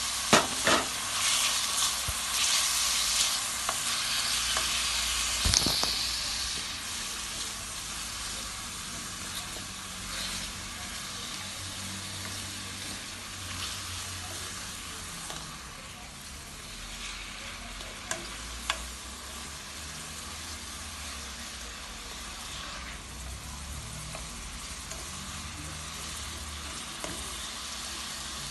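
Saltfish and chopped vegetables sizzling in a frying pan while being stirred. The sizzle is strongest for the first six seconds or so, with a few sharp knocks, about half a second in, around five and a half seconds in, and twice around eighteen seconds.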